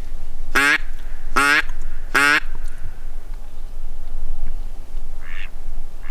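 A duck quacking close by: three loud quacks in quick succession, each falling in pitch, then fainter quacks near the end.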